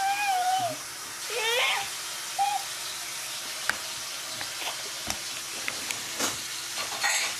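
A baby's short, high vocal squeals and coos in the first two seconds, over a steady background hiss, followed by a few light clicks.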